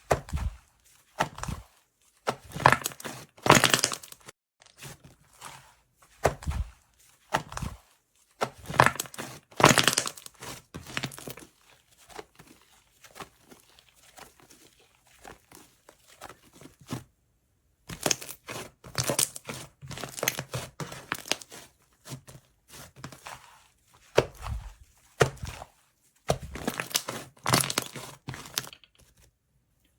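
Slime being worked, making irregular bursts of crackling and crunching with short pauses between them.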